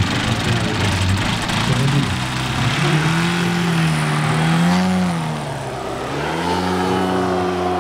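Hornet HE125 125cc gasoline engine of a large RC model airplane running, first rough, then as a clear tone that climbs, dips sharply about six seconds in, and settles steady again.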